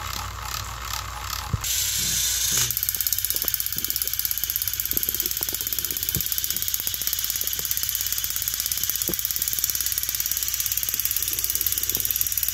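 Battery-powered Thomas & Friends toy train engines running on plastic track: a steady whir of small motors and gearboxes with rapid, even clicking, louder from about two seconds in.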